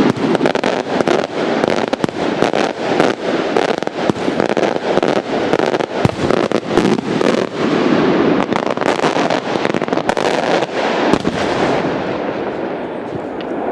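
Maltese beraq aerial firework shells bursting overhead: a dense, rapid crackle of many sharp reports over a steady roar, thinning and dying away near the end.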